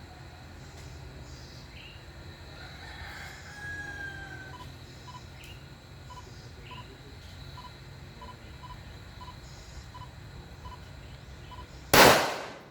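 A single loud gunshot near the end, a sharp crack that dies away quickly. Earlier, a rooster crows about three seconds in.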